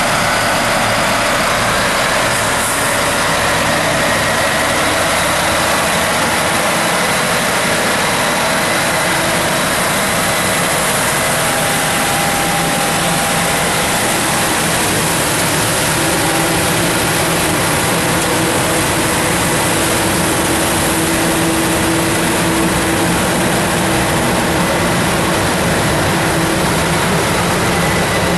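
Vactor GRV-2 glycol recovery truck's vacuum system running, its Cat 3406 auxiliary diesel driving the blower while the pick-up head sucks water off wet pavement. It makes a loud, steady, even rush of air and engine noise with no breaks.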